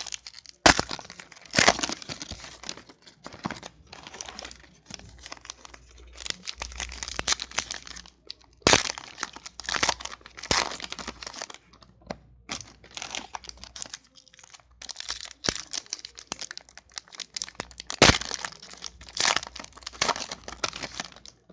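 Foil wrappers of football card packs crinkling and tearing as they are ripped open and handled, a run of sharp crackles with a few louder snaps.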